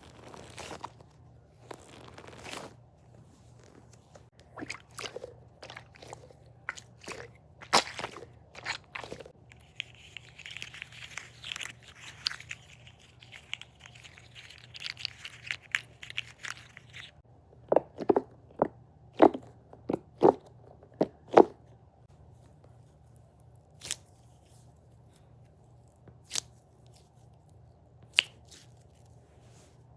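Needoh squishy stress toy squeezed and handled close to the microphone, making scattered crackles and clicks. There is a stretch of soft crinkling in the middle, then a quick run of sharp, loud taps.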